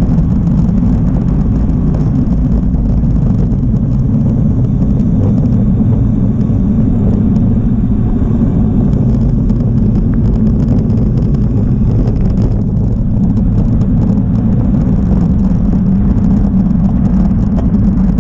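Wind buffeting the microphone of a camera on a moving bicycle: a loud, steady low rumble, with road noise under it.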